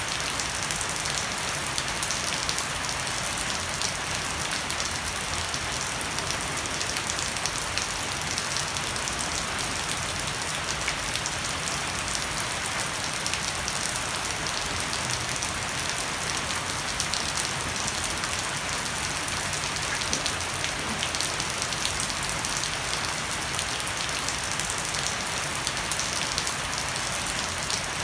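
Heavy rain falling steadily on a wooden deck and dense leaves, with water streaming off the edge of a thatched roof: an even hiss laced with fine pattering of drops.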